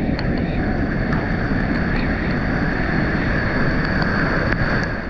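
Muddy floodwater rushing over a concrete dam spillway, a steady loud roar. The river is swollen from heavy rain.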